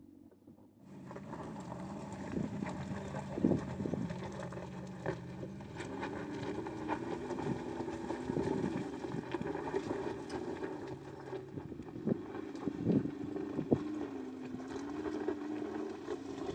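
2019 Mercedes-Benz G-Class climbing a steep gravel track: the engine comes in about a second in and pulls steadily, its pitch rising and dipping with the throttle, while stones crack and crunch under the tyres.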